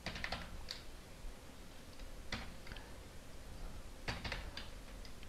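Computer keyboard keys clicking faintly in a few short, sparse runs of keystrokes: slow typing.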